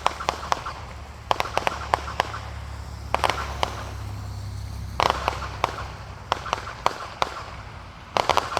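Fireworks popping and crackling in irregular clusters of sharp reports, a few seconds apart, over a low steady rumble.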